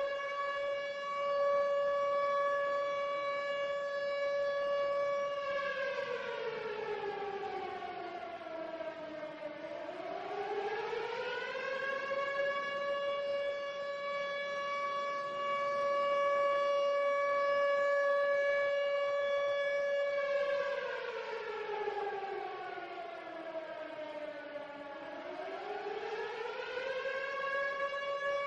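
A siren wailing: a steady tone that twice slides down about an octave over about four seconds and climbs back up in about two, about six seconds in and again about twenty seconds in.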